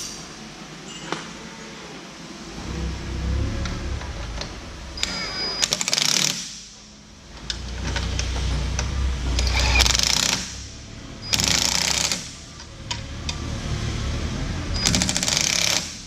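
Four bursts of rapid mechanical rattling from a tool driving fasteners, each a second or so long, over a low steady rumble.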